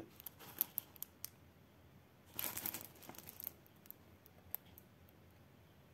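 Faint crinkling of a diamond painting canvas's plastic protective film being handled, with a few light ticks in the first second and a longer rustle from about two and a half seconds in.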